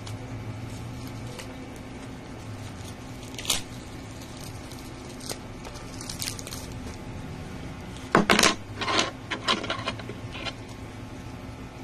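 Plastic mailer bag crinkling and rustling in a run of sharp bursts as a boxed item is pulled out of it, loudest about eight seconds in; a single click comes earlier.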